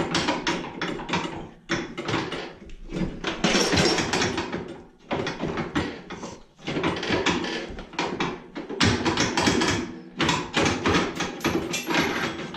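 Metal parts and hand tools clanking, tapping and scraping in quick, irregular strokes as stubborn small spacers are worked loose on a Cub Cadet 1200 garden tractor.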